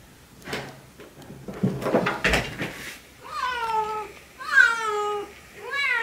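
A Siamese cat meowing three times in quick succession, each call loud and falling in pitch, calling insistently to its owner. Before the calls comes a stretch of rustling with a thump as a fleece blanket is dragged down from the cat tree.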